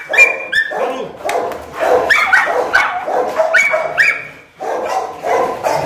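Pit bulls barking and yelping excitedly in a rapid string of short, high barks, with a brief pause about four and a half seconds in.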